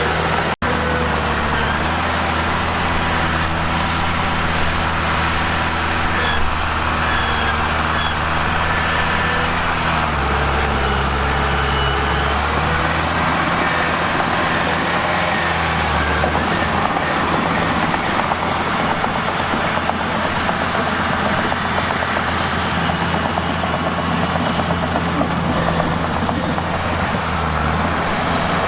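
Mitsubishi bulldozer's diesel engine running under load, its low engine note shifting in pitch about ten seconds in and again a few seconds later as the load changes. The sound cuts out for an instant about half a second in.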